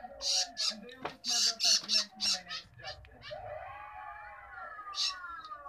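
Baby long-tailed shrike begging with harsh, rasping squawks in quick runs of several a second. The calls pause for about two seconds midway, then start again near the end.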